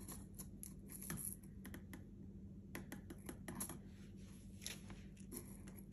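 Faint, irregular light clicks and taps of hands handling sprinkle pots and picking out small sugar sprinkle decorations.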